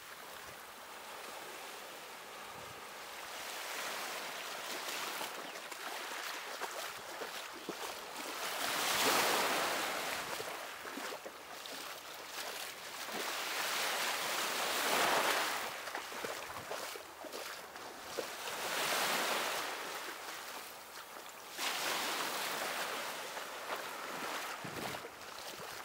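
Small waves washing onto the shore, a rush of surf that swells and fades every few seconds, loudest about nine and fifteen seconds in.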